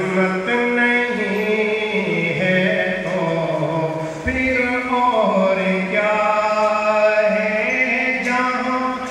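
A naat, an Islamic devotional poem, sung in a chanting style with long held, wavering notes.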